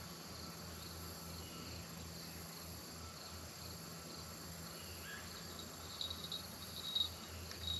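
Faint, steady trilling of an insect chorus, crickets or similar, with a couple of short knocks near the end.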